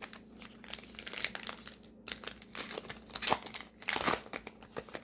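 Foil wrapper of a trading-card pack crinkling and tearing as it is ripped open, in quick irregular crackles.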